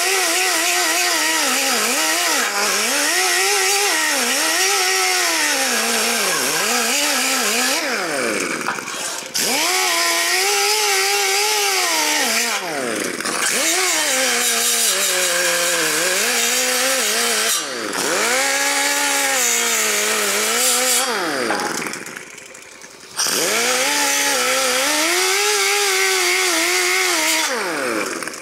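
Small pneumatic cut-off tool with a cutting disc grinding into a sheet-steel inner rocker panel. The air motor's whine sags and recovers again and again as the disc bites, over a hiss of air. It stops briefly about eight seconds in and again around twenty-two seconds in.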